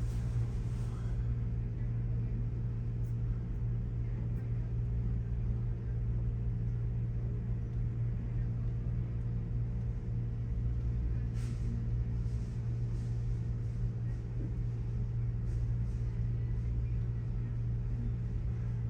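Steady low hum, with a few faint clicks about halfway through.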